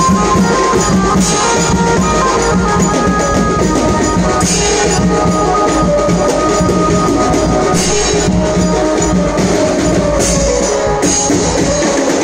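Loud procession band music: steady drumming with jingling, tambourine-like percussion under a sustained melody.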